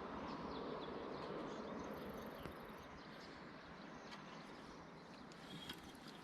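Steady outdoor background noise with faint, brief bird chirps and a short high trill about two seconds in.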